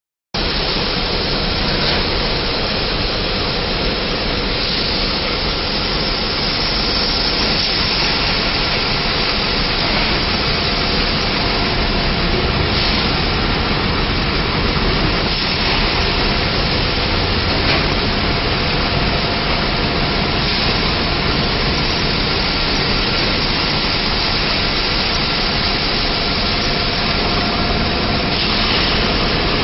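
Salt bag-packing line running: a steady, loud mix of machine hum and continuous hiss, with a few brief knocks.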